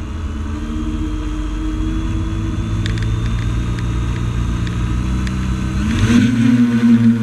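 A drone's electric motors whirring steadily at low power with the craft at the ground, then rising in pitch and getting louder about six seconds in as it lifts off.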